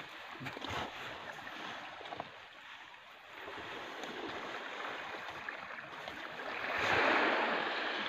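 Sea waves washing onto the beach: a rushing hiss that dips a few seconds in, then swells to its loudest about seven seconds in.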